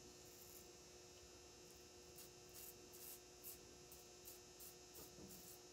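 Faint scraping strokes of a Merkur 38C double-edge safety razor with an Astra blade cutting lathered stubble on the chin, short strokes about two or three a second from about two seconds in. A faint steady hum runs underneath.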